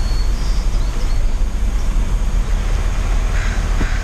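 Steady low rumble of wind and road noise on a camera microphone held out of a moving car's window, with a few faint high chirps in the first second.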